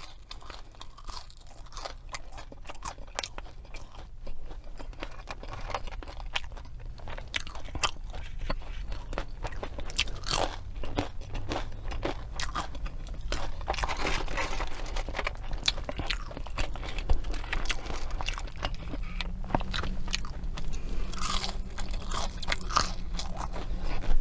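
Close-miked eating of fast food: chewing with a steady run of short, crisp crunches.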